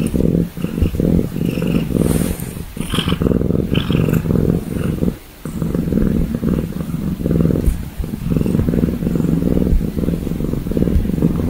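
An animal purring very close up: a loud, low rumble pulsing rapidly, with a brief break about five seconds in.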